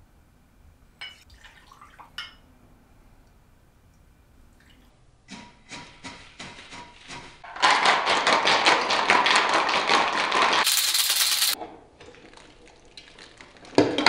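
Ice rattling inside a metal cocktail shaker being shaken hard. There is a loud spell of about three seconds past the middle, ending in a short hiss, and a second spell starting right at the end. Lighter clinks of glass and metal come before the first spell and between the two.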